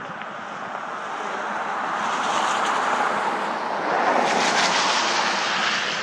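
A vehicle passing by: a rushing noise that swells for a few seconds, peaks past the middle and fades near the end.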